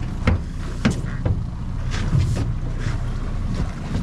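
Boat motor running steadily, with wind on the microphone and several short, sharp splashes from a hooked coho salmon thrashing at the surface.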